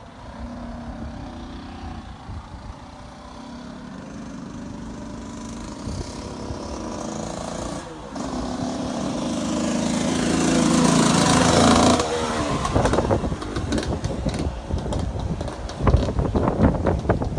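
1996 KTM 125 two-stroke engine with an FMF exhaust, running and getting steadily louder up to a peak about twelve seconds in. It then drops suddenly into an uneven, crackling run with sharp rev blips near the end.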